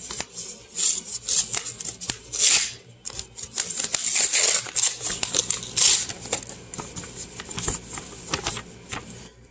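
A paper envelope being opened by hand and the letter inside pulled out and unfolded: irregular crinkling and rustling of paper with scattered sharp clicks.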